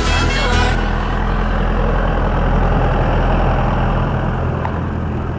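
Tractor engine running steadily as it drives past pulling a tipping trailer, easing off a little near the end. Background music cuts off within the first second.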